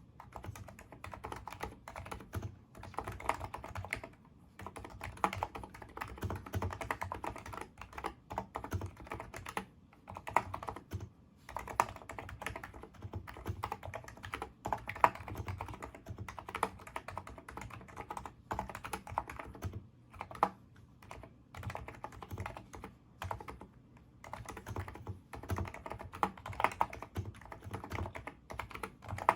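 Continuous typing on a NIZ Micro82 keyboard with 35 g electrostatic capacitive switches: quick runs of keystrokes broken by a few brief pauses.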